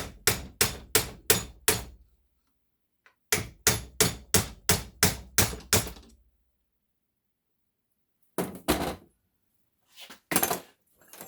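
Hammer tapping on a hot water heater valve assembly to drive the steel rod out of its copper sleeve, in two quick runs of about three or four blows a second. Near the end come two more pairs of separate blows.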